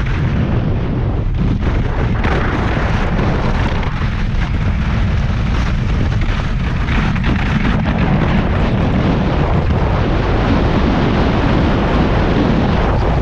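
Heavy wind buffeting the microphone at downhill racing speed, a steady rumble, with the hiss and chatter of ski edges scraping on hard-packed snow.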